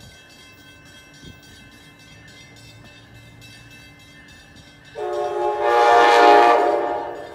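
Amtrak Northeast Regional train sounding its horn as it approaches: one blast of about two seconds, starting suddenly about five seconds in, after a stretch of low background hum.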